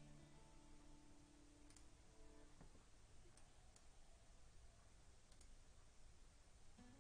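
Near silence: room tone with a few faint computer mouse clicks.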